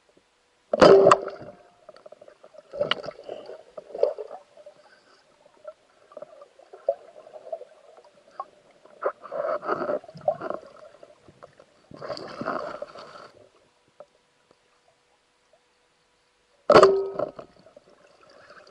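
Underwater sounds picked up through a camera housing as a spearfisher swims with a speargun: bouts of water gurgling and swishing, with two sharp knocks, about a second in and near the end, the loudest sounds.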